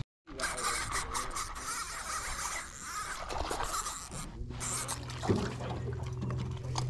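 Close scratchy rubbing and scraping of a hand and sleeve brushing over the camera's microphone while a fish is reeled in. About halfway through, a steady low hum starts and runs on.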